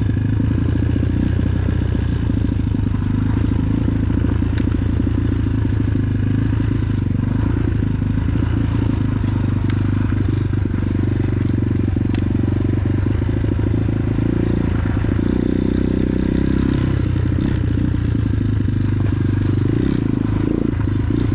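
X-Pro Titan 250cc dirt bike's single-cylinder four-stroke engine running steadily while being ridden along a dirt trail, with a few sharp clicks and rattles over the rough ground. The engine note changes briefly about fifteen seconds in.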